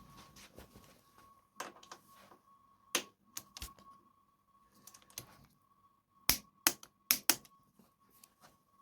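Hand tools clicking and knocking on metal, a string of irregular sharp clicks with the loudest ones about six to seven and a half seconds in, as the pinch bolts on the swingarm's eccentric chain adjusters are tightened.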